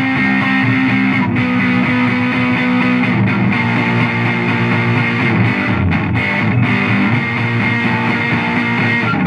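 Electric guitar playing sustained, ringing chords that change every few seconds, cut by a few short breaks between chords.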